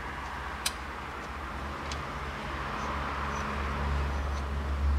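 Hand work on a toothed timing belt being fitted over the engine's sprockets: a sharp click about half a second in and a softer one near two seconds, with faint rustling that grows toward the end, over a steady low hum.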